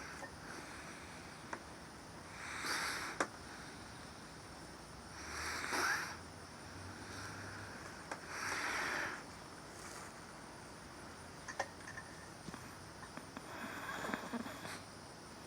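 Faint breathing close to the microphone: four slow breaths a few seconds apart, with a few small clicks.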